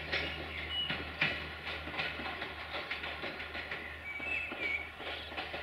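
Diesel multiple unit pulling away through the station, its wheels clicking irregularly over rail joints and points above a steady low hum. A brief high chirp comes about four seconds in.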